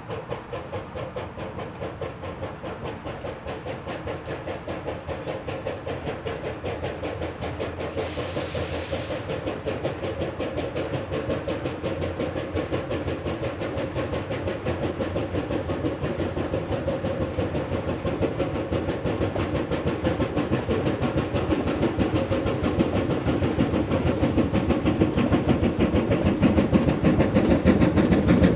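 Replica 1860s 4-4-0 steam locomotive No. 17 "York" approaching under power, its exhaust chuffing steadily and growing louder as it nears. A brief hiss of steam about eight seconds in.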